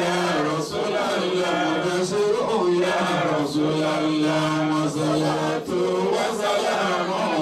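A man chanting in Arabic into a handheld microphone in a melodic Islamic devotional chant, with long held, slowly gliding notes and one note sustained for about two seconds midway.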